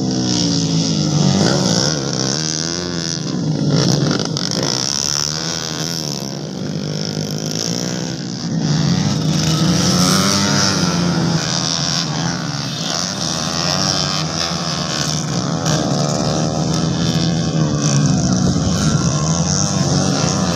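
Motorcycle engines revving hard as the bikes race past, their pitch repeatedly rising and falling with several engines overlapping.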